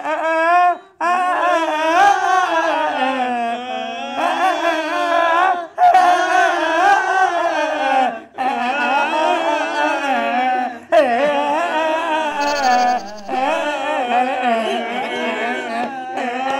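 A voice singing a wavering, drawn-out wail in phrases of a few seconds separated by brief breaks: weeping performed to a song tune, a sung lament.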